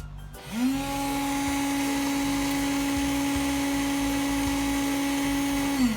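Mixer motor of a Jofemar coffee vending machine running in a manual test: it spins up in a split second about half a second in, runs at a steady whine with a whirring hiss for about five seconds, then winds down and stops near the end.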